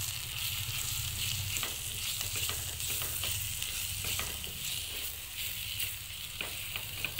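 Sliced onions and spice powders sizzling in a hot pan as a spatula stirs and scrapes them, with short scraping strokes here and there over a steady hiss. This is the onion-and-masala base being fried before water goes in. A steady low hum runs underneath.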